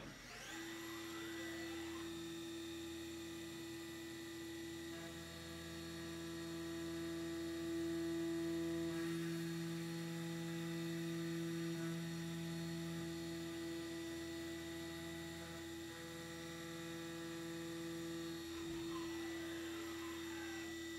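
CNC milling machine spindle spinning up with a rising whine, then a steady machine whine while an end mill cuts along the edge of an aluminum block, the sound fuller through the middle while the tool is in the metal. The spindle winds down near the end with a falling whine.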